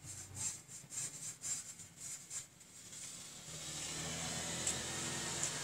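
A hand swiping wet paint across a canvas in quick rubbing strokes, about two a second, for the first two and a half seconds. A steady background hiss follows.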